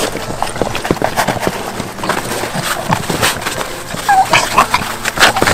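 A Staffie panting and licking close to the microphone: a run of quick breaths and wet mouth clicks.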